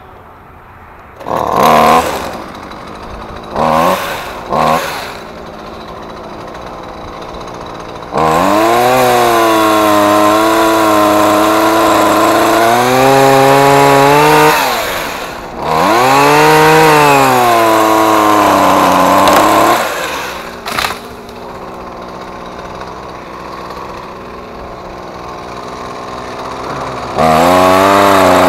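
Gas chainsaw revved in a few short blips, then run at full throttle through two long cuts, its pitch dipping and recovering as it bites into the wood, dropping back to idle between them; another cut starts near the end.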